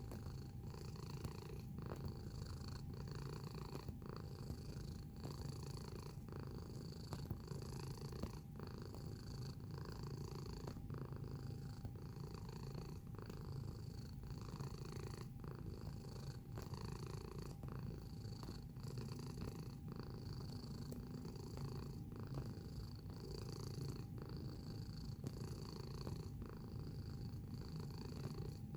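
Domestic cat purring close to the microphone: a steady low rumble that dips briefly about once a second as the cat breathes in and out.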